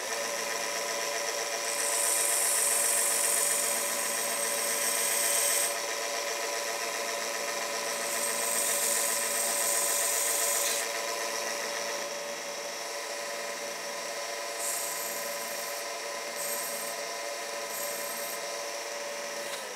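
A 1x30 belt sander's motor running steadily while the steel wheel of a pizza cutter is ground against the coarse 220-grit belt. The grinding comes as a hiss over the hum in two longer passes of a few seconds each, then several short touches near the end. The wheel is held so it does not spin on the belt, sharpening its chisel-ground edge.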